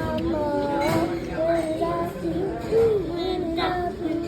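A high voice singing a melody with long held, sliding notes, with music.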